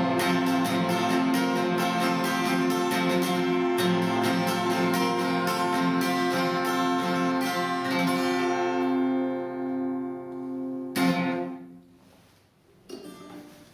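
A guitar is strummed in quick, even strokes over a held chord until about eight seconds in, then the chord rings out and fades. One last strummed chord comes about eleven seconds in and dies away within a second, ending the piece.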